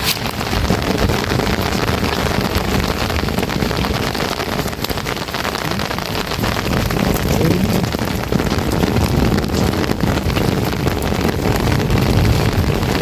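Heavy rain pouring steadily: a dense hiss of falling drops with a low rumble underneath.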